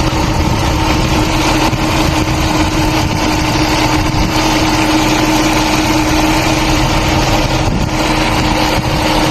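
Car engine running steadily, with a steady tone held over the engine noise.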